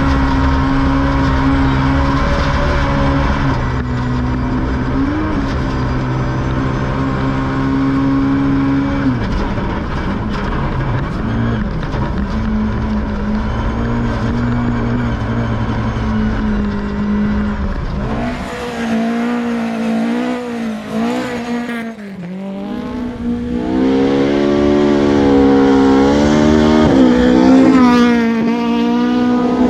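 Rally car engine running hard at fairly steady high revs, then from a little past halfway swinging sharply up and down in pitch as it is revved and shifted through the gears on a loose gravel track.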